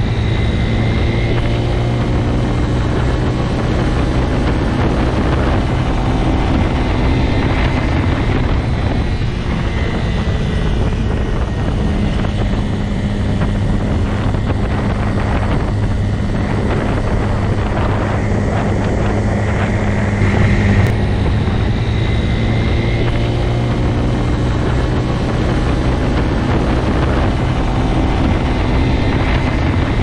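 Motorcycle engine running at a steady cruising speed with an even, unbroken drone, mixed with wind rushing past the rider's microphone.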